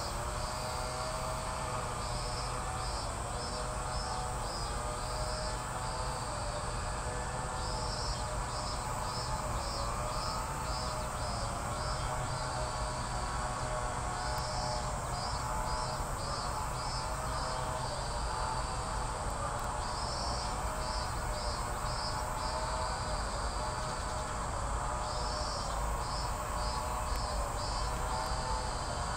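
Insects calling: a high, rapid run of pulsed chirps repeats every few seconds over a continuous steady drone.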